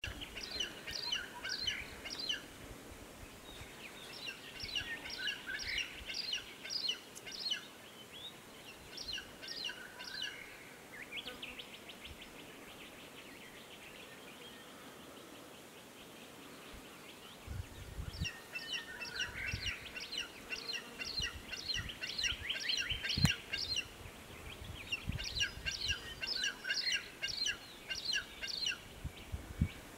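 Wedge-tailed eagle chick calling: bursts of rapid, thin, high squealing notes, each run lasting a second or a few seconds, with pauses between runs. A few low thumps and one sharp click fall in the second half.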